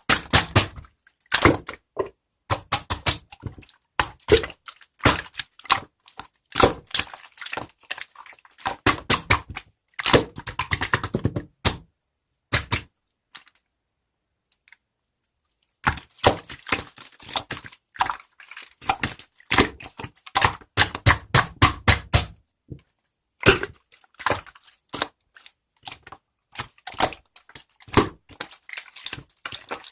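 Rapid, irregular sharp clicks and taps in bursts, with a pause of about three seconds in the middle.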